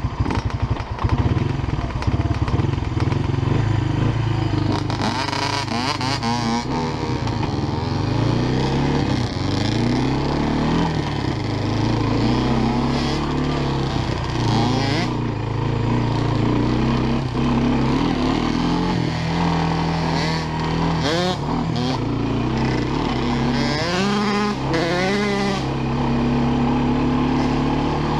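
Honda FourTrax ATV engine heard from the rider's seat, running along a dirt trail, its pitch rising and falling again and again as the throttle opens and closes through the gears. A higher-pitched engine revs up in short rises at a few points.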